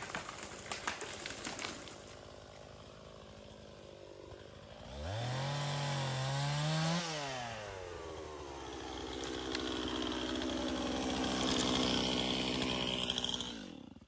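A chainsaw running as a felled cedar crashes down through the branches with cracking and snapping in the first couple of seconds. The saw then idles and is revved twice: a quick rise about five seconds in that drops back two seconds later, then a longer rev held high until it cuts off suddenly near the end.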